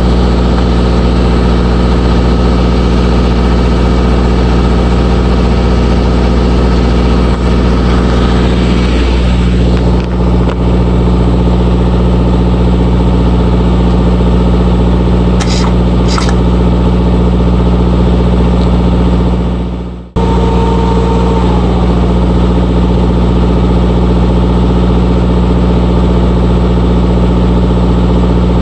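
Large diesel truck engine idling steadily. The sound drops out for an instant about twenty seconds in, then carries on the same.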